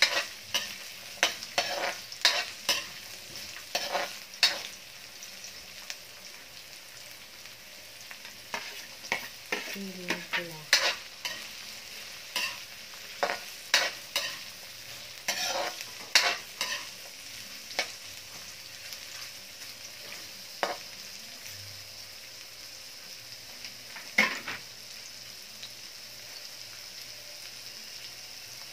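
Carrot strips, bell pepper and onion frying in a wok with a steady sizzle. A metal spatula scrapes and clacks against the aluminium wok as they are stirred. The strokes come often at first, thin out in the last third and stop, leaving only the sizzle.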